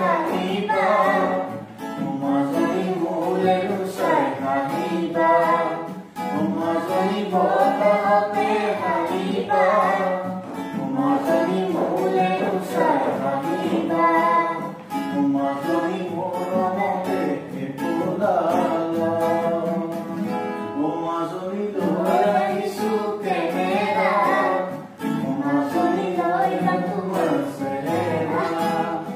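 A man and a boy singing a song together, accompanied by strummed acoustic guitars.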